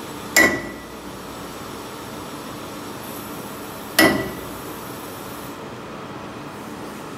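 Two sharp metal-on-metal knocks about three and a half seconds apart, each with a brief ringing tone: a steel bar tapping a workpiece held in a lathe's three-jaw chuck to bring it true against a dial indicator. A steady background hiss runs underneath.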